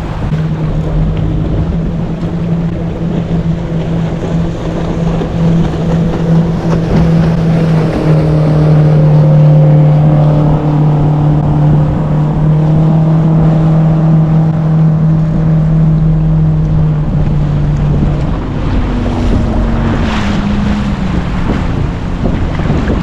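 Boat motor running at a steady pitch that steps down a little about eight seconds in, then cuts out near the end, followed by a brief rising tone.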